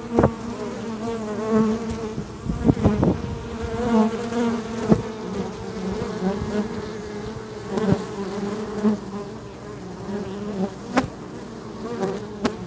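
Honeybees buzzing at close range, a steady wavering drone that swells and fades as bees move near. A few sharp knocks stand out, the clearest about three seconds in, at about five seconds, and near the end.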